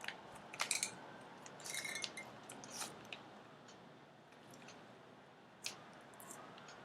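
Rubik's cube being twisted by hand: irregular plastic clicks and clacks as its layers are turned, several in quick succession in the first three seconds and one more near the end.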